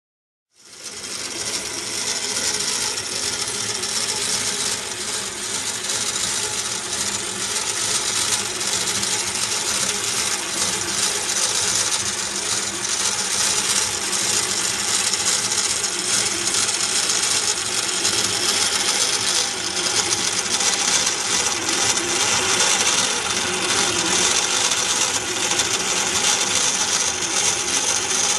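Merkur construction-set model of one cylinder of a K8S310DR locomotive diesel engine running, its steel strips, gears, rocker arms and valve gear making a steady, dense metallic clatter of many fine clicks. It fades in just after the start.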